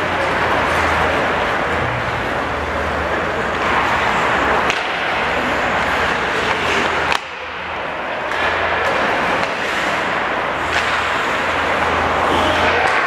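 Ice hockey play: skate blades scraping and carving on the ice, with a few sharp clacks of sticks or puck. The noise dips suddenly about seven seconds in, then carries on.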